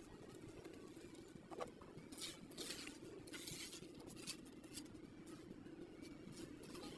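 Faint scraping and patting of a hand trowel working wet cement mortar into a pillar mould, a run of short strokes through the middle, over a low steady hum.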